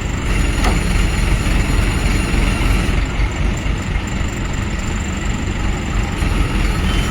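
Heavy diesel vehicle engine running steadily with a deep rumble.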